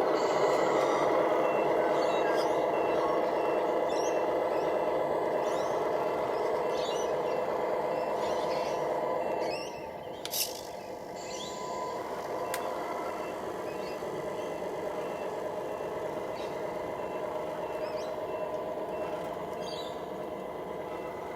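Electric drive motors and gearboxes of a radio-controlled construction vehicle whining steadily. The whine drops in level about halfway through, and a sharp click follows. A faint, evenly repeated high beep runs through the first half.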